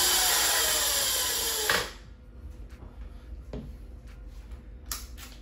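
Razor MX650 electric motor and chain drive spinning the lifted rear wheel at speed, overvolted to 48 V with a fourth battery. It runs loud and steady, then cuts off suddenly about two seconds in, followed by a few light knocks.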